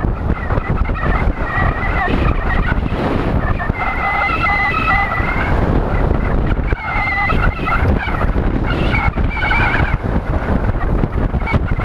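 Wind buffeting a helmet-mounted GoPro in an open skeleton housing at road-racing speed, a dense, fluttering rush. A few short, wavering higher-pitched tones come and go over it, around four seconds in and again twice later.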